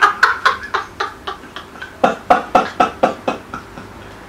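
A woman's hearty laughter: a fast run of ha-ha-ha cackles, about four a second, which breaks off for a moment, starts again about two seconds in, and tails off near the end.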